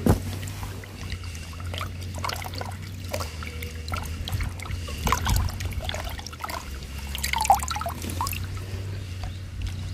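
Spring water trickling over rocks into a small pool, with a steady low rumble underneath. A few sharp splashes and knocks come as a hand works in the water, the loudest about seven and a half seconds in.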